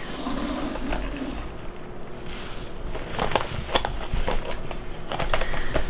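Fast-food paper and cardboard packaging rustling as a Big Mac is handled and opened, with a few sharp taps and clicks about halfway through.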